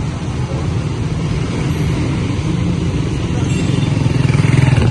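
Street traffic with a motor vehicle engine running close by, growing louder near the end.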